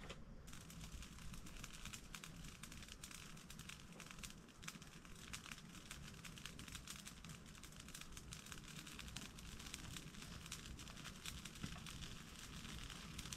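A pile of dry brush and cut weeds catching fire, with faint, rapid, irregular crackling and snapping as the flames take hold.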